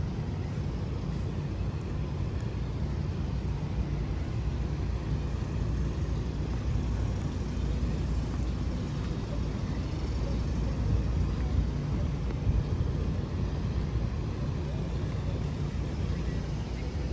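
Steady city street ambience dominated by a continuous hum of vehicle traffic.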